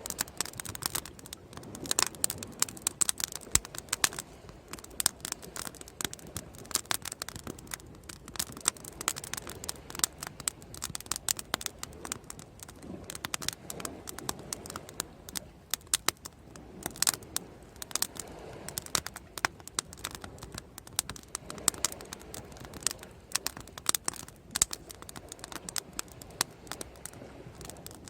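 Bonfire crackling: irregular sharp snaps and pops, several a second, over a low steady background hiss.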